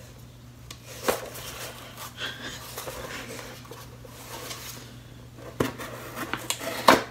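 A package being cut open and handled with a small folding knife: scraping and rustling, with a few sharp clicks, the loudest near the end.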